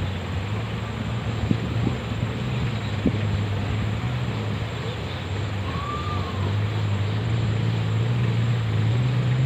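Off-road jeep's engine running steadily, its note stepping up slightly near the end, with a few sharp knocks in the first three seconds.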